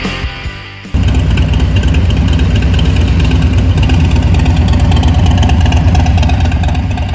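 Harley-Davidson Fat Bob 114's Milwaukee-Eight 114 V-twin, fitted with an S&S air cleaner and intake manifold, comes in abruptly about a second in after music fades, then runs steadily and loudly.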